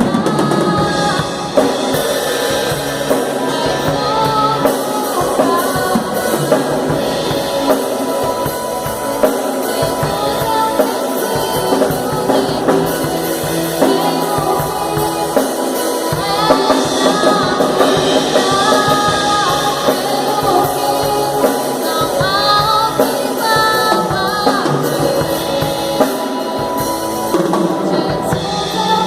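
A band playing a song, with drum kit, guitar and a woman singing.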